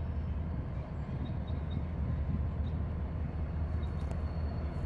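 Diesel freight train rumbling steadily, a low drone with no break.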